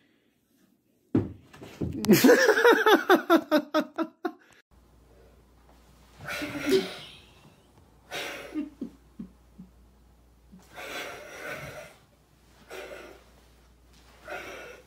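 A person laughing hard in quick pulses, followed by a series of short breathy bursts every second or so.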